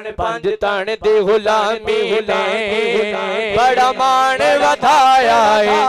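Male naat reciter singing Punjabi devotional verse into a microphone, amplified. The first second comes in short rhythmic pulses, which then give way to long, wavering, ornamented held notes over a steady low hum.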